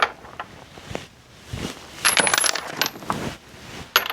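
Loose metal sockets clinking and clattering against each other as they are picked through, with a quick cluster of bright ringing clinks about two seconds in.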